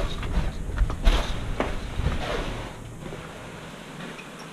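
Scuffs, knocks and rustling of a person moving through a cramped wooden structure, with low bumps from the jostled head-mounted camera. The handling noise dies down after about three seconds.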